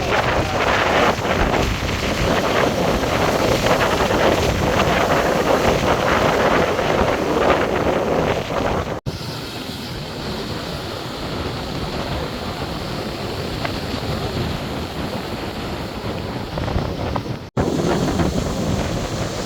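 Large storm surf crashing and washing on a beach, with wind buffeting the microphone. The sound breaks off abruptly about nine seconds in and again near the end, and it is quieter in between.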